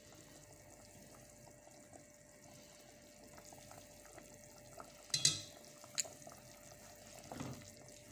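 Quiet kitchen handling while seasonings go into a pot. A utensil clinks against a dish about five seconds in, with a sharper click a second later and a soft rustle near the end, over a faint steady hiss and a low hum.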